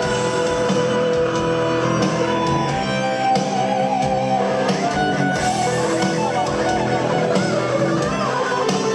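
Live rock band playing an instrumental passage: electric guitars over bass and drums, steady and loud with a regular low beat.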